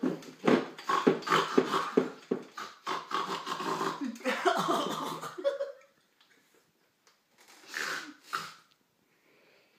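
A man making rapid, pulsing animal-like vocal noises through his hands cupped over his mouth, stopping about six seconds in; two short breathy sounds follow near the end.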